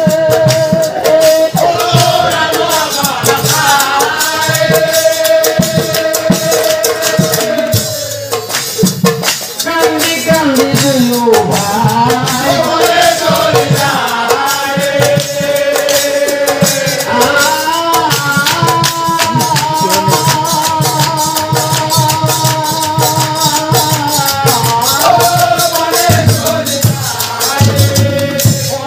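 Nagara naam music: a man singing long, wavering held notes over fast, even clashing of hand cymbals (taal) and nagara drumming, the voice briefly dropping out about eight seconds in.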